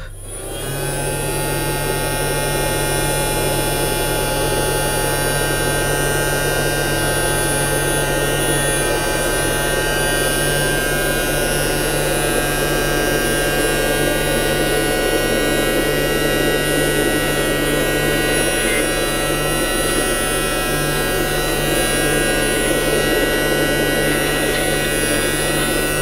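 Casdon toy Dyson DC24 upright vacuum cleaner's small suction motor switched on, coming up to speed within a second or two, then running steadily with an even, whining hum as the cleaner is pushed over a rug.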